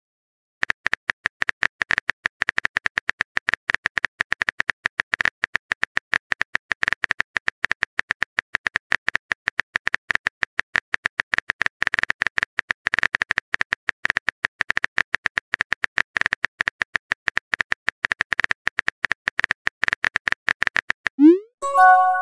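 Simulated phone-keyboard typing sound: rapid, irregular clicks of a texting app's key-tap effect while a message is typed. Near the end a short rising swoosh and a bright chime sound as the message is sent.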